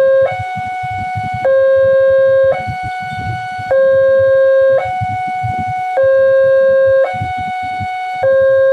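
Railway level-crossing warning alarm sounding, an electronic two-tone signal that alternates between a louder low tone and a higher tone, each held about a second. It warns that a train is approaching and the barrier is down.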